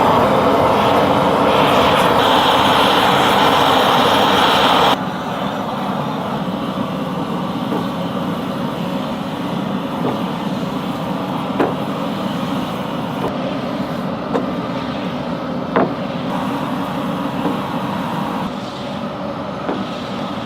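Workshop machinery running with a loud steady noise that cuts off sharply about five seconds in. A quieter steady running noise follows, with a few light knocks.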